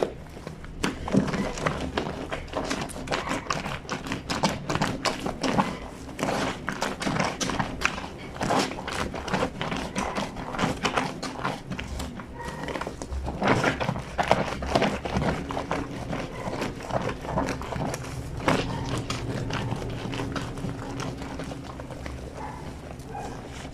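A soapy fleece sheet being scrubbed and slapped by hand on the ridged board of a granite washing sink: a dense, uneven run of wet rubbing strokes and soft knocks.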